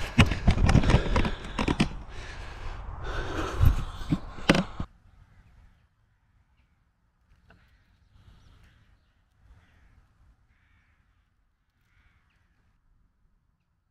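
Rustling and knocking of a camera being handled and carried, cutting off abruptly about five seconds in. Then quiet, with birds calling faintly several times.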